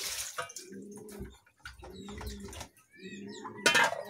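Water splashing at a kitchen sink as fish are rinsed, with small knocks of a metal pot and a basin, then a loud clatter of the metal pot about three and a half seconds in. Birds chirp in the background near the end.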